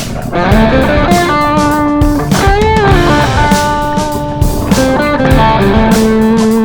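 Rock music with electric guitar lines and a steady beat.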